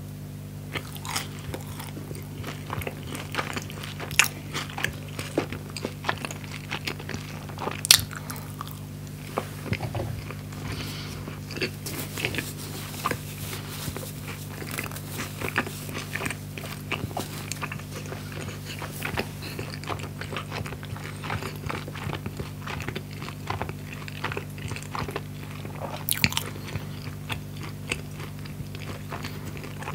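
Close-miked chewing and crunching of a crispy grilled skepasti pita sandwich: a dense run of small crackles while chewing, with louder crunches about four, eight and twenty-six seconds in. A steady low hum lies underneath.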